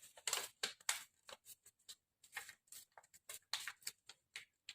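A4 paper being folded and creased by hand: a series of short, soft rustles and crinkles at irregular intervals.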